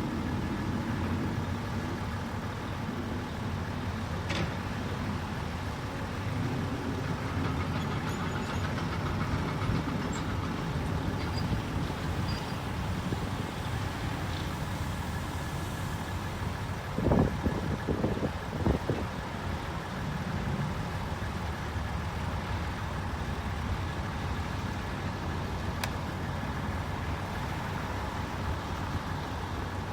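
Heavy construction machine's engine running steadily while grading the demolition lot, with a few loud knocks a little past halfway.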